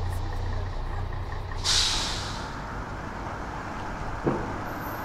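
Big-city street traffic: a heavy vehicle idling with a low hum, then a sudden sharp hiss of air brakes releasing about two seconds in that fades within a second. A single knock comes near the end.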